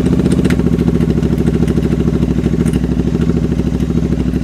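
Royal Enfield Continental GT 650's parallel-twin engine idling steadily just after a cold start, through newly fitted aftermarket headers.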